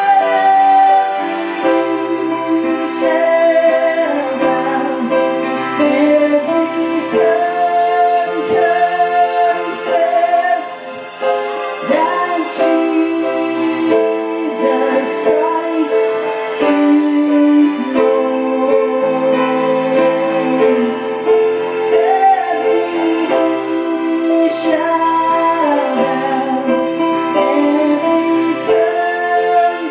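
A gospel worship song: a woman singing over sustained keyboard chords.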